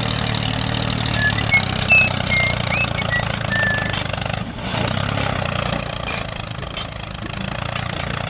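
A tractor engine running steadily, with a few short high chirps between about one and four seconds in.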